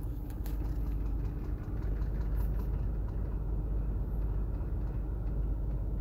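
Clicking and gurgling from under the dash of a 2006 Lexus RX400h with the climate control set to floor mode, over a steady low rumble in the cabin. The owner takes it for a failing climate-control servo motor, a blend door or air mix actuator, working the ventilation doors.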